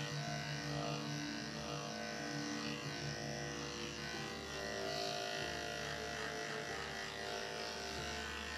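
Corded electric dog grooming clipper running steadily as it shaves through a matted coat, its hum shifting slightly in pitch as the blade works through the mats.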